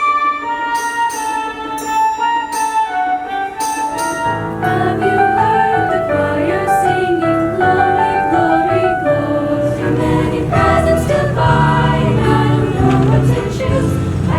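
Student choir singing with instrumental accompaniment; a higher, lighter passage opens, and fuller singing with low accompaniment comes in about four seconds in.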